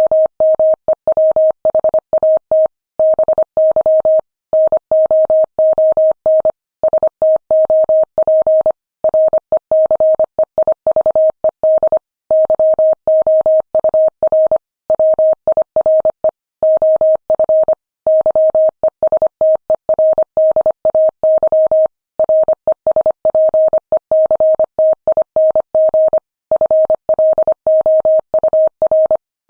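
Morse code sent at 25 words per minute: a single steady mid-pitched tone keyed on and off in rapid dots and dashes, with short gaps between letters and longer pauses between words.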